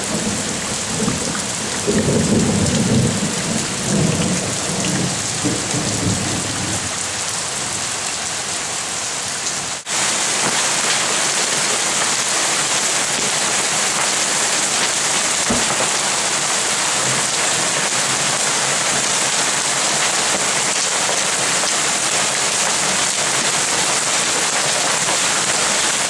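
Hail and heavy rain pelting down, a dense steady hiss of stones and drops hitting leaves and hard surfaces. A low rumble runs under it for the first several seconds. The hiss breaks off briefly about ten seconds in and comes back steadier and a little louder.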